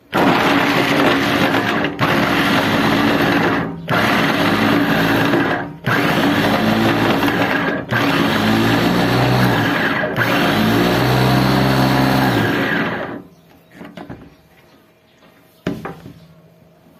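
Capsule cutter food processor's motor chopping food in six runs of about two seconds each, with brief breaks between them as the button is pressed again, and stopping about thirteen seconds in. A few light knocks follow as the unit is handled.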